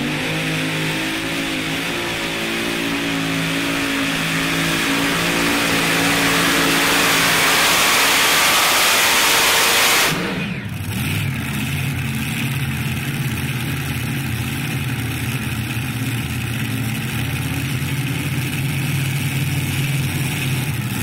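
Twin supercharged engines of a Super Modified pulling tractor at full throttle under the load of a weight-transfer sled, rising in pitch and growing louder. About ten seconds in the sound drops off abruptly to a steadier, lower engine note as the engines are throttled back at the end of the pull.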